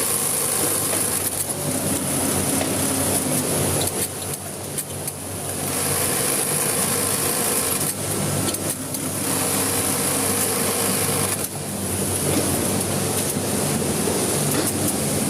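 Electric sewing machine running, a steady motor hum with the needle stitching, easing off briefly a few times before running on.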